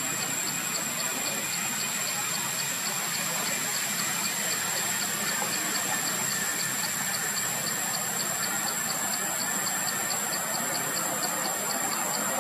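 Steady outdoor background: a broad hiss with a continuous high-pitched whine and a high, regular ticking about four times a second, with no voices or animal calls standing out.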